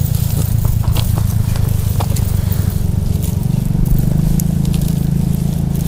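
A small engine running steadily as a low, even rumble, with a few light clicks and knocks over it.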